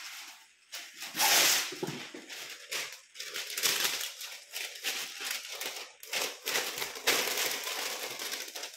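Baking paper rustling and crinkling as it is pulled from its box and pressed into a steel pot to line it, in uneven surges with the loudest just after the first second.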